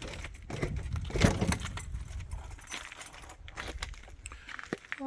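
Light metallic jingling and scattered clicks over a low rumble, with one louder knock about a second in. No church bell is ringing yet.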